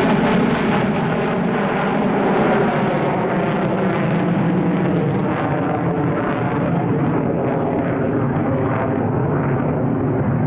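F-15 Eagle fighter jet's twin turbofan engines, loud and steady as the jet flies away overhead, the sound growing duller as its high hiss fades over the first few seconds.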